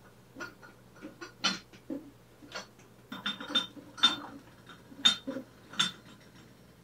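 A wooden cube-box cart being shifted and set down: irregular knocks of the wood, with glass and ceramic items on top clinking as it moves, the loudest about four and five seconds in.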